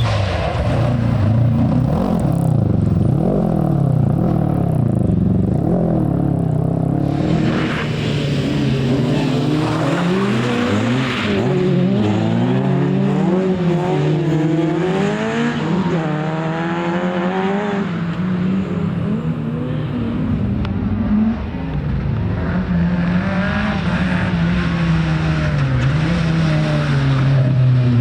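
Rally car engine under hard driving, its pitch climbing and dropping again and again as the driver accelerates, changes gear and lifts off.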